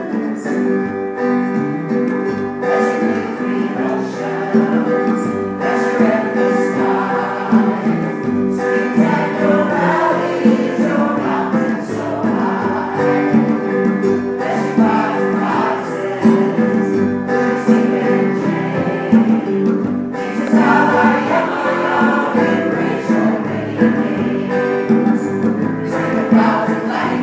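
Choir singing together in held notes.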